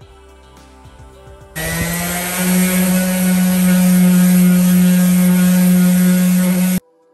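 Electric orbital sander starting up about a second and a half in, its motor hum rising briefly in pitch as it comes up to speed, then running steadily with a hiss of 120-grit paper on a wooden top before cutting off abruptly near the end. Soft background music is heard before it starts.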